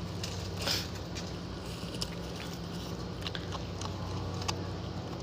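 A small animal chewing a piece of raw vegetable, with scattered soft crunching clicks over a steady low hum.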